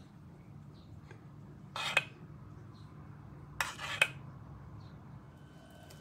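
Metal spoon scraping and clinking against a metal pan twice, about two seconds in and again a second and a half later, the second time as two quick strokes. A low steady hum runs underneath.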